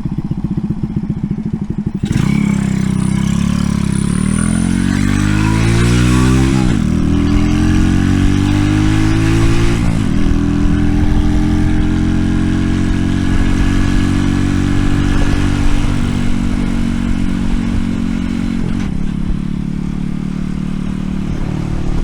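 Pit bike's single-cylinder four-stroke engine through a stainless steel side-exit exhaust, ticking over low, then opened up about two seconds in. It revs up, drops back at a gear change a few seconds later, revs up again, shifts again about ten seconds in, then holds a steady cruise.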